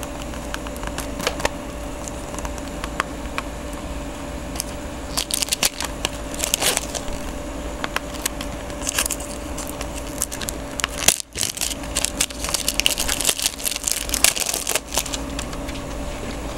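A plastic CD jewel case being handled and opened: scattered clicks and crinkling rustles, busier from about five seconds in, over a steady hum.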